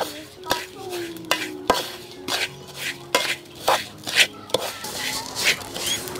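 Metal spoon stirring and scraping dry granulated sugar around a metal wok, in short strokes about twice a second.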